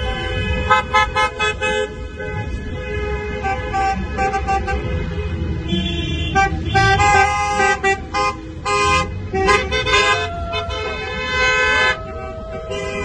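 Many car horns honking at once, in quick runs of short beeps and longer held blasts, over the steady low rumble of a slow-moving line of cars.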